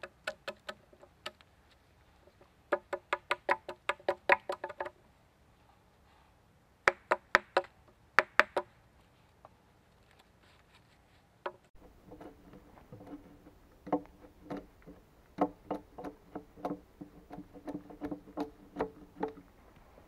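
An axe chopping into a log lying on a sawhorse, hewing it flat: quick runs of strikes, about five a second, each hit ringing with a short pitched note, with pauses between the runs. From about halfway through, the strikes come less evenly and sound lower.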